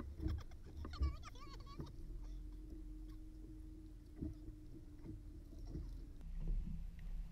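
Small waves slapping against the hull of a fishing boat, with scattered knocks. A brief shout about a second in, and a steady low hum from about two to six seconds in.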